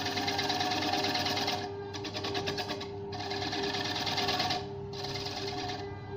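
Wood lathe turning a disc-shaped blank while a hand tool cuts into it: a rapid chattering hiss in stretches of a second or two, broken by brief dips when the tool eases off, over a steady hum.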